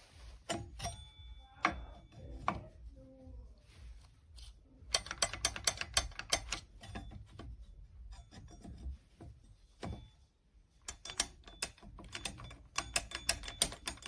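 Quiet mechanical clicking and rattling: clusters of short, rapid clicks with a few louder knocks, and now and then a faint high ring.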